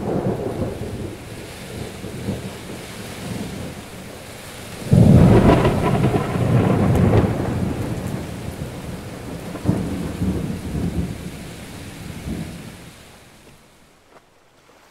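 Thunderstorm: thunder over steady rain. There is a clap right at the start, a heavy, loud crash about five seconds in that rumbles for a few seconds, and another about ten seconds in. Then the rumble dies away near the end.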